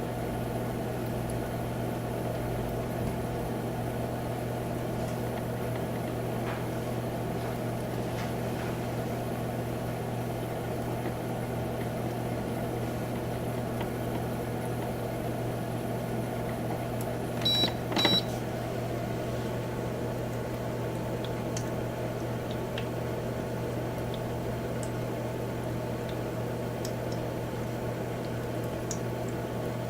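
Humidifier running with a steady low hum and soft hiss. About two-thirds of the way through, two short high beeps sound about half a second apart.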